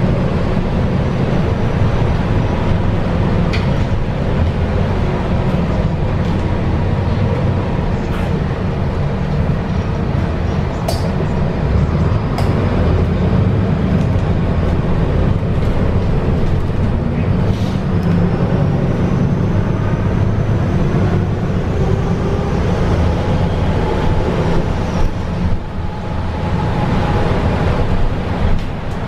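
Cabin noise of a MAN Lion's City A22 Euro 6 city bus under way: a steady low engine and drivetrain drone mixed with tyre and road noise on a wet road. A few sharp clicks and rattles from the cabin fittings are heard now and then.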